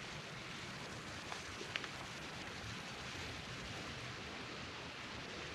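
Quiet, steady outdoor ambience: a soft, even rushing hiss across an open grassy hillside, with a couple of faint short ticks a little under two seconds in.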